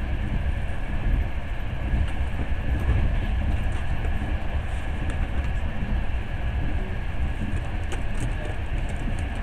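Passenger train running, heard from inside the carriage: a steady low rumble of the wheels on the rails, with a few faint clicks about eight seconds in.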